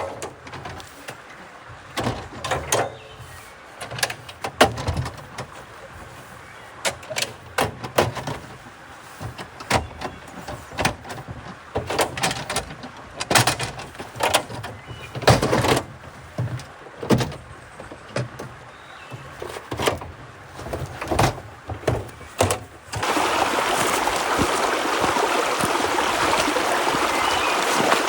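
Camp gear being handled: a long run of irregular clicks, knocks and clunks. Near the end these stop abruptly and a steady rush of stream water takes over.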